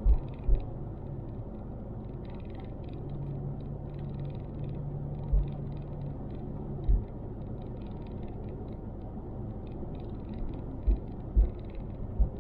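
Car interior road noise while driving: a steady low rumble of the engine and tyres, with a hum from about three to seven seconds in and several short low thumps.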